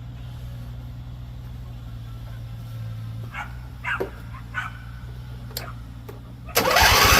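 A dog barks three short times over a steady low hum. Near the end comes a loud burst of rushing noise with a rapid low pulsing.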